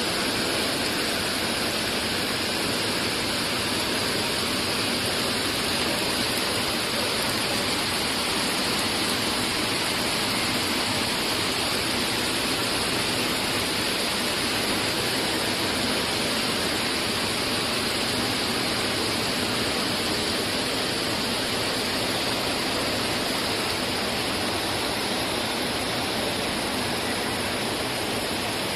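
Heavy typhoon rain pouring down in a steady, unbroken hiss.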